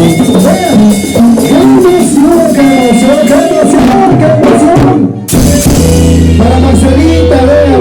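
Live band music with drums and a bending melodic line, possibly a voice. The band stops for a moment about five seconds in, then comes back in over a held low bass note.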